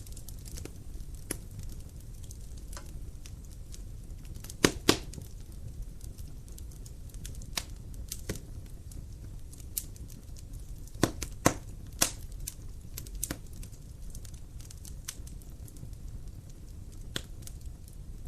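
Wood fire crackling in a fireplace: irregular sharp pops and snaps over a low steady rumble, with two louder double pops, one about a quarter in and one just past the middle.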